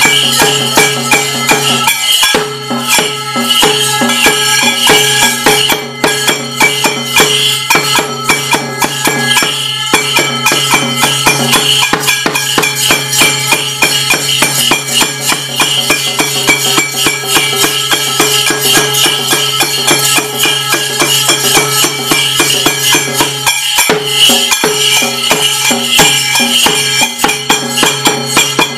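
Loud, fast traditional Kerala ritual percussion: rapid, steady strokes with bright metallic jingling and clashing over sustained ringing tones. The rhythm breaks off twice, briefly: about two seconds in and about five seconds before the end.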